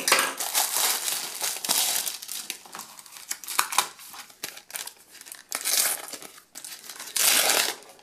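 Clear plastic packaging crinkling and rustling as a sticker multipack is pulled out and handled, then a sticker booster packet is torn open, with two louder rips near the end.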